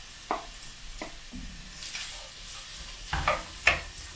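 Frying pan of diced onions and boiled beef cubes sizzling as the onions go in, with a wooden spoon stirring and scraping against the pan, a few sharp knocks.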